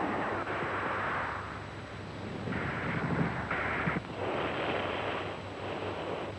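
Wartime newsreel battle soundtrack: a rough, continuous rumble of explosions and gunfire.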